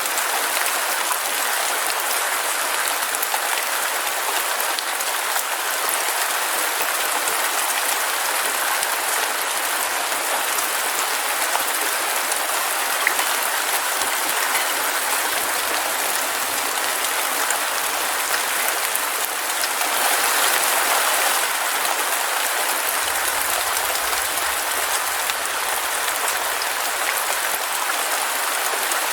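Heavy rain falling steadily, a dense even patter of drops that swells slightly about two-thirds of the way through.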